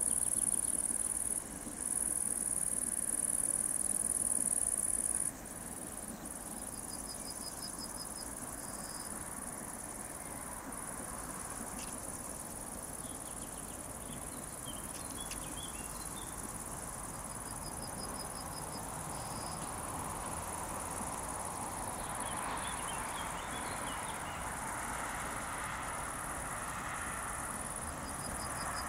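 Crickets chirring in a high steady buzz, loudest at first and dropping back about five seconds in, with fainter insect trills after. In the second half the rumble of a pair of British Rail Class 58 diesel locomotives hauling a ballast train grows louder as they approach.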